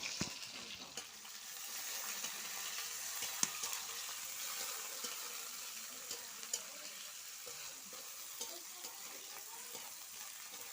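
Onions frying in hot oil, sizzling steadily as they are stirred, with a few sharp clicks scattered through.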